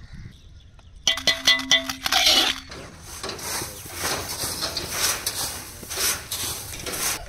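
A steel ladle clinking and scraping against a steel cooking pot, with several ringing metal strikes starting about a second in. Then a steady rustling hiss with small ticks as heaped grain is shovelled with metal scoops into sacks.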